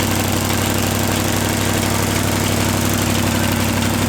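Chevrolet 283 small-block V8 running steadily on only one cylinder head, firing on four cylinders, with the other bank's lifters open and spraying oil. It still has a vacuum leak.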